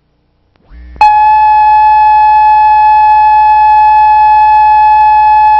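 Loud steady reference test tone from the colour-bar leader of an old videotape: one unwavering pitch a little below 1 kHz with overtones. It starts suddenly about a second in, just after a low electrical hum and a brief upward sweep.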